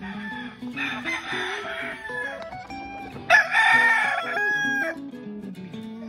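Gamefowl rooster crowing: a fainter call about a second in, then a loud crow starting a little after three seconds and lasting nearly two seconds, over background guitar music.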